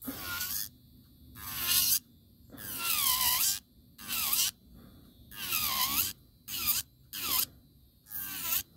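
Electric nail file (nail drill) grinding glitter acrylic off a fingernail in about eight short passes, each a whine that dips and rises in pitch, with brief pauses between.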